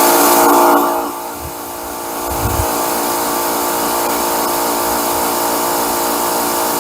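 Sun Joe electric pressure washer running with the trigger held open: a steady motor-and-pump hum over the hiss of the water spray. The level dips about a second in and builds back up a second or two later.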